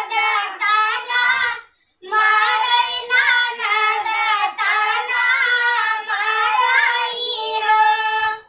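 A Bhojpuri Jitiya geet, a devotional folk song, sung by a single high voice over a steady low accompanying note. It breaks off for a moment about two seconds in and cuts off at the end.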